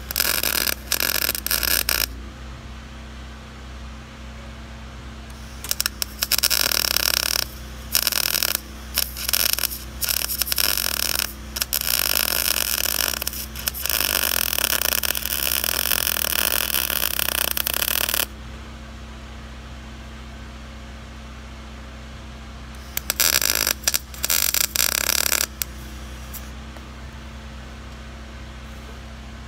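Lincoln 140 MIG welder crackling as it welds steel on a shipping container roof, in several bursts: a short one at the start, a long run of about twelve seconds broken by brief stops, and a shorter one near the end. A steady hum carries on between the welds.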